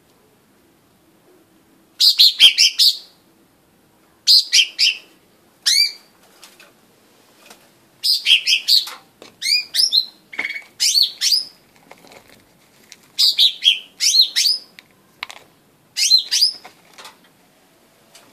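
Blue-winged leafbird singing: after about two seconds, short bursts of quick, high chirps and whistled gliding notes, each burst lasting up to about a second and repeated every second or two.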